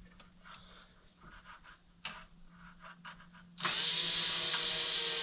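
A few light knocks and handling sounds, then about three and a half seconds in a power drill starts and runs steadily, its pitch slowly sinking as it works under load, as when driving a screw into wood.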